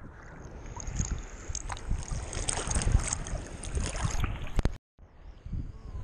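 Choppy bay water sloshing and lapping around a waterproof camera held at the surface, with wind rumbling on the microphone. The sound cuts out briefly near the end.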